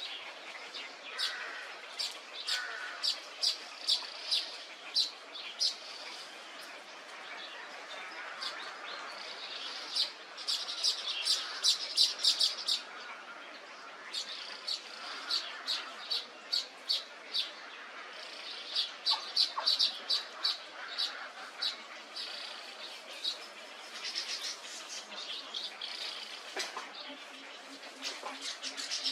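Many birds chirping together: short, sharp, high calls come in quick runs over a steady background din of more birds.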